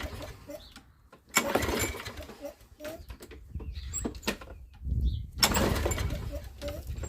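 Toro Recycler walk-behind mower's small engine being pull-started: two pulls about four seconds apart, each a sudden burst of engine noise that dies away within about a second instead of settling into a steady run.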